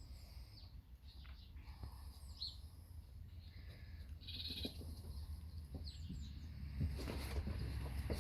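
Labrador puppies giving short, high-pitched squeaks and whines, scattered here and there as they romp together.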